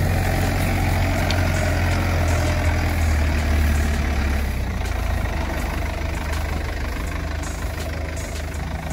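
Kubota M9540 tractor's diesel engine running steadily under load while driving a tractor-drawn slasher that is cutting tall grass: a steady low drone with a noisy rush over it, the low drone easing slightly about halfway through.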